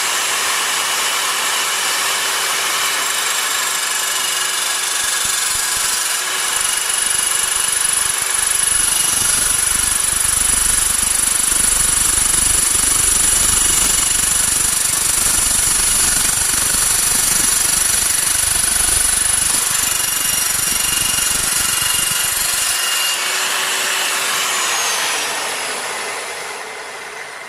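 Metal-cutting chop saw with a carbide-tipped blade running with a steady high whine. From about six seconds in a heavier grinding rumble joins it as the blade cuts through steel. Near the end the whine falls in pitch and fades as the blade spins down.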